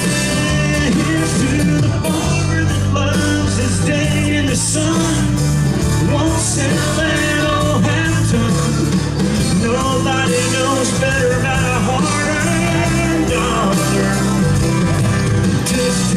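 Live country band playing an instrumental break, amplified through a concert sound system: a steady drum beat and bass under a wavering melodic lead line.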